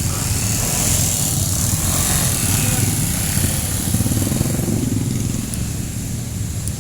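Street traffic with a vehicle engine running close by, its rumble growing a little louder around the middle and then easing off.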